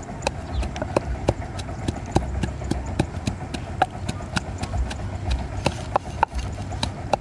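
Cleaver chopping fish on a round wooden chopping board: sharp knocks of the blade on the wood, about three a second and somewhat irregular.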